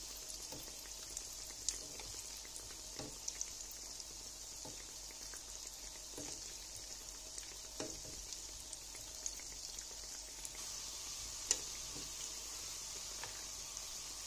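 Squares of sweet dough deep-frying in hot oil in a pan: a steady sizzling hiss with scattered crackles and a few sharper pops.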